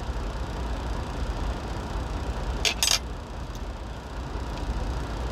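Steady low rumble of a truck's engine running, heard inside the cab, with two quick sharp clinks of a metal fork against a plate a little under three seconds in.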